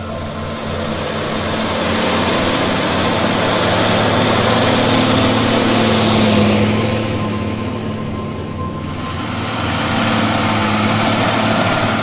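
Case MX120 tractor's 5.9-litre Cummins six-cylinder diesel running under load while pulling a plough through the soil. It is a steady engine drone with a rushing noise over it, louder through the middle and again near the end.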